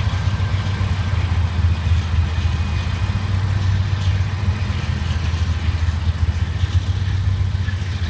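Three diesel-electric freight locomotives pulling a double-stack container train past, their engines running with a steady, loud low drone.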